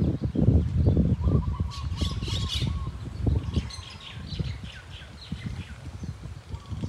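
Wind gusting over the microphone with rustling leaves, loudest in the first second or so. Birds chirp over it, a quick run about two seconds in and more calls a second or two later.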